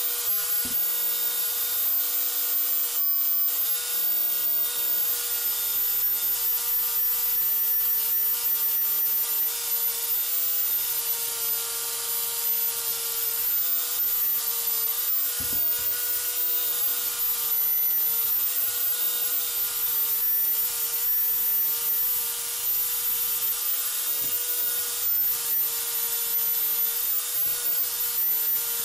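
Chicago Electric finger sander (a narrow-belt electric file) running steadily, its sanding belt rubbing over the carved wood of a small bear: a constant motor whine under the hiss of abrasive on wood.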